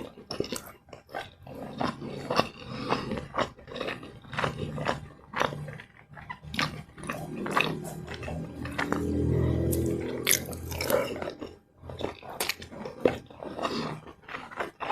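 Close-miked chewing and biting of a meal of fried rice and flour-battered fried liver: repeated wet mouth clicks and crunches. About eight seconds in, a low drawn-out sound lasts about two seconds.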